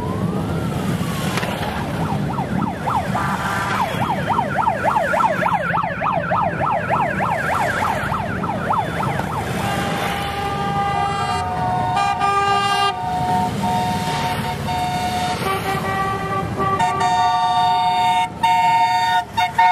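Harley-Davidson motorcycle engines rumbling as the bikes ride past, with a siren over them: it rises and falls once, then warbles quickly, about three or four times a second, for several seconds. After that, horns sound in repeated toots, longer and louder near the end.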